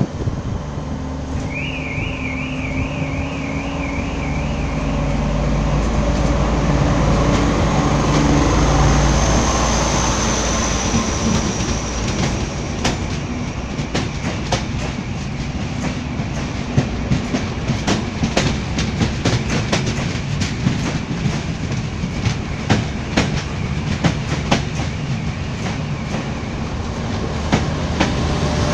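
TrainOSE passenger train rolling past a station platform: a deep rumble builds to its loudest about eight seconds in, then the wheels clack over the rail joints, about one or two clacks a second, as the coaches go by. A warbling high tone sounds for a few seconds about two seconds in.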